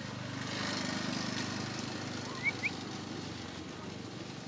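Steady drone of an engine running in the background, growing louder about a second in, with two short high chirps about two and a half seconds in.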